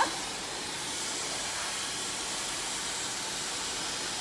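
A steady rushing hiss with no clear tone, running at an even level.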